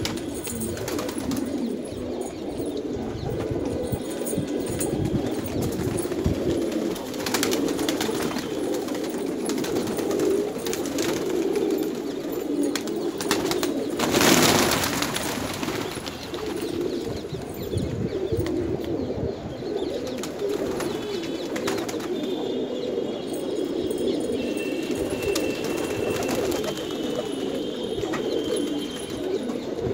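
A loft full of domestic pigeons cooing continuously, many low coos overlapping. A short loud rustle comes about halfway through.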